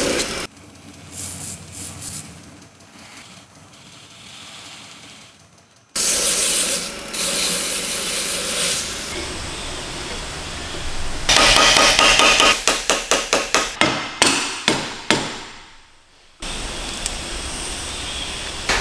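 A belt grinder grinding a steel sword guard cuts off about half a second in. Later there are stretches of machine noise, then a run of about a dozen sharp metal taps, some four a second, as the guard is tapped down onto the blade's tang.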